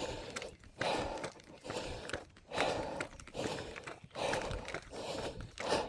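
A person's hard, rhythmic breathing while running uphill, with a loud rush of breath about once a second, along with footsteps.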